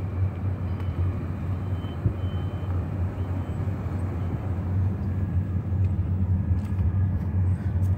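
Car driving, heard from inside the cabin: a steady low engine and road rumble.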